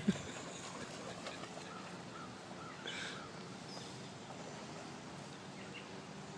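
Small birds chirping faintly a few times over a steady outdoor background hiss.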